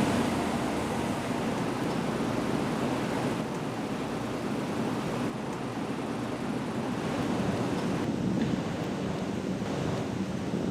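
Steady outdoor background noise: a low rushing hiss with no distinct events, which changes in tone abruptly a few times.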